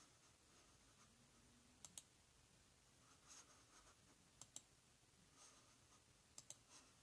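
Computer mouse double-clicked three times, each a quick pair of sharp clicks, against faint room tone.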